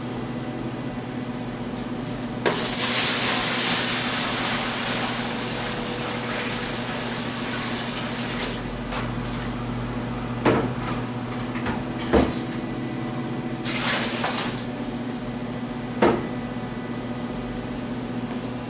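Water running into a large plastic bucket for about six seconds, strongest at the start, followed by a few sharp knocks and one more short gush.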